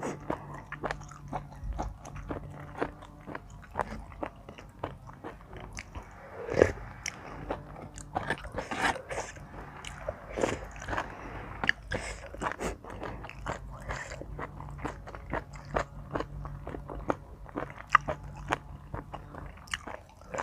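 Close-miked eating: mouth-noise of chewing and biting into spicy Thai seafood salad, with irregular wet clicks and crunches throughout.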